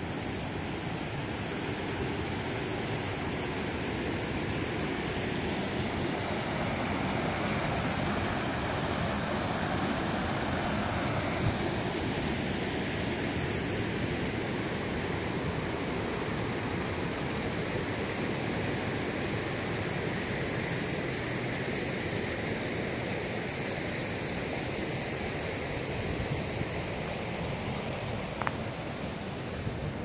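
Creek water rushing over rocks in a steady, even rush, a little louder about a third of the way in and then easing slightly.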